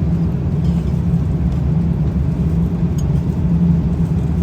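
Steady low drone of an airliner cabin in flight: engine and airflow noise.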